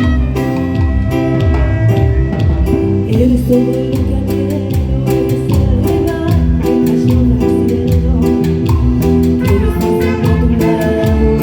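Live band playing Latin dance music with a steady beat, bass and drums, at a sound check.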